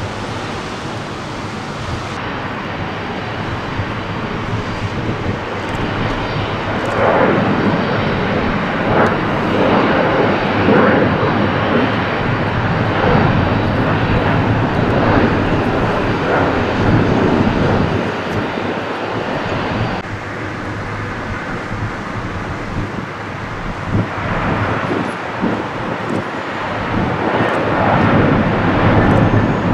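Jet airliner engines at takeoff power during climb-out: a loud, rough, crackling jet noise from an Embraer E-jet. After a cut about two-thirds of the way in, an Airbus A330 takes over, its engines getting louder near the end as it lifts off.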